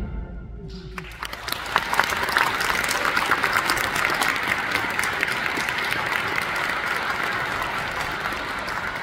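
Audience applause breaking out about a second in, just after the orchestra's final chord has died away, then slowly thinning and fading.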